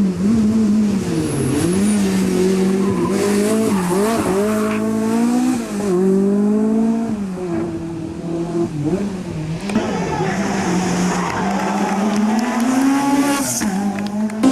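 Rally car engine at high revs, its note repeatedly dropping and climbing again as the driver lifts and gets back on the throttle, with tyre and skid noise underneath.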